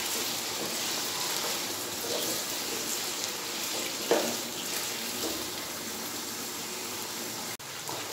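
Chicken pieces and fried onions sizzling steadily in hot oil in a wok while being fried light golden, with a brief scrape of a wooden spatula about four seconds in.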